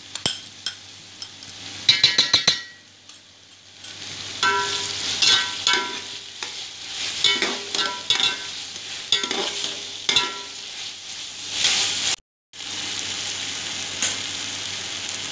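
A flat metal spatula scrapes and stirs sauce-coated vegetables in a steel pot while they sizzle over the heat. The stirring strokes come about once a second, with a quick clatter of scrapes about two seconds in.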